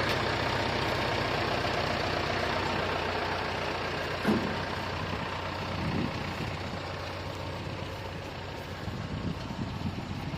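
Engine idling steadily, with a couple of faint brief sounds about four and six seconds in.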